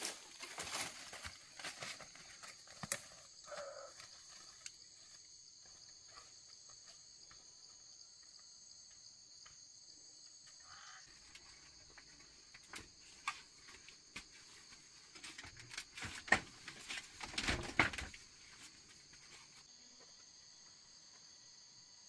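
A steady high insect chorus, with short bouts of rustling and crunching in dry undergrowth near the start and again for a few seconds past the middle.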